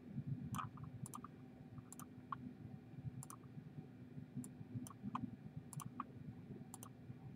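Computer mouse buttons clicking faintly and irregularly, about one or two clicks a second, as the scroll arrows of a font list are clicked and an entry is selected.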